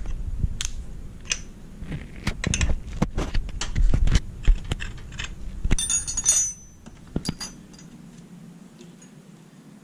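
Irregular metallic clicks, clinks and knocks of a steel crankshaft-installer tool and its turning bar being handled on a Vespa engine crankcase. There is a jangling metallic rattle about six seconds in. The clinking stops after about seven and a half seconds.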